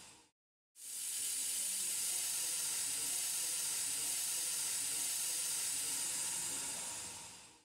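Compressed air from an air brake system hissing steadily. It starts abruptly about a second in and fades out near the end.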